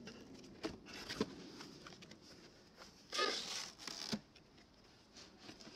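Cardboard box flaps being pulled open by hand: light knocks and rustling of corrugated cardboard, with a louder, longer scrape about three seconds in that ends in a knock.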